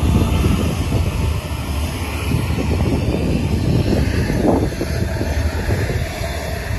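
Business jet's turbofan engines at takeoff power during its takeoff roll, a steady low rumble.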